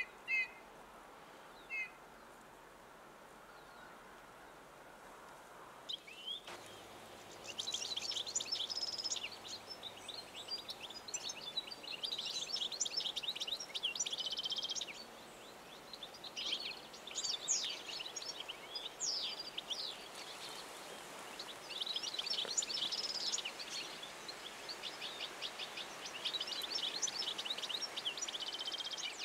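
European goldfinch song: a fast, high twittering of rapid notes in long phrases, starting about six seconds in, after a couple of short calls at the start.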